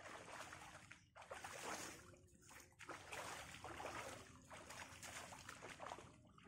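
Faint water splashing and trickling in four bouts of a second or so each, with short pauses between.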